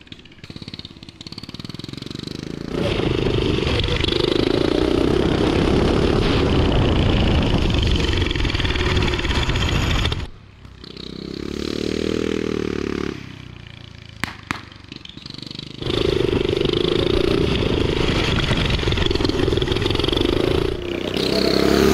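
Turbocharged Predator 420cc single-cylinder engine on a drift trike running hard at full throttle, with long loud pulls broken by a drop and a brief rev up and back down near the middle.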